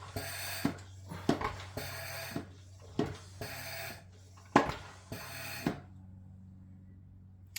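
Hand-operated vacuum oil extractor pump being worked, four strokes about a second and a half apart, each with a hiss of air. The pumping stops near the end, as the vacuum builds to draw the oil out of the mower's sump.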